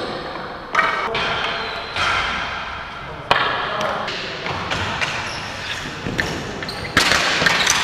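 Ball hockey play on a concrete arena floor: several sharp clacks of sticks and ball striking the floor and boards, each echoing in the hall, with players calling out over the steady hubbub.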